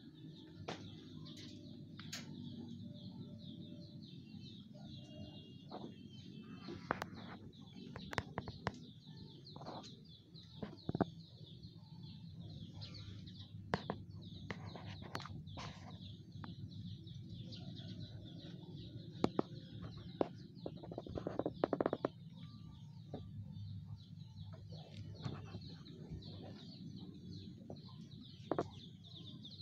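Outdoor ambience of small birds chirping steadily, with scattered sharp clicks and knocks that are loudest about two-thirds of the way through.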